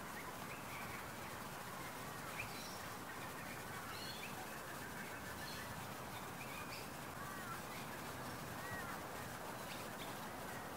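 A large feeding flock of little black cormorants on open water: a steady wash of splashing and wingbeats, with many short bird calls scattered through it.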